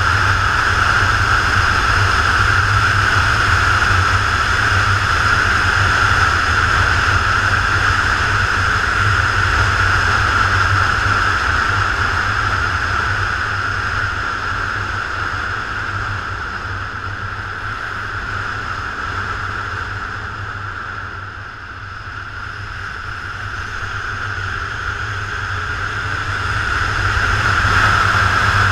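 Motorcycle riding at road speed, heard from a handlebar-mounted camera: steady engine and wind rush. The sound drops off through the middle and builds again near the end.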